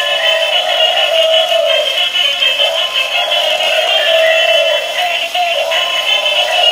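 A battery-operated dancing Hulk toy plays its electronic song with synthesized singing through its small built-in speaker. The sound is thin and tinny, with no bass.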